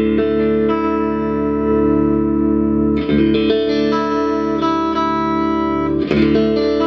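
Electric guitar played through a Peavey Envoy 110 solid-state combo amp on its clean channel with the tone controls flat: chords strummed and left to ring, a new chord struck every second or two.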